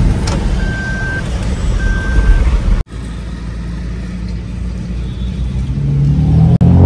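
Toyota Fortuner's in-cabin warning beeping: three even beeps at one pitch, about a second apart, over the idling engine as the SUV pulls out. After a cut about three seconds in, the car is driving, engine and road rumble growing louder near the end as it accelerates.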